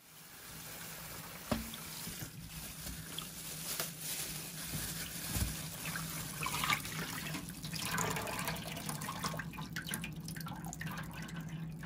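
Water running and splashing in a stainless steel sink as chili peppers are rinsed by hand in a plastic colander, with a sharp knock about a second and a half in.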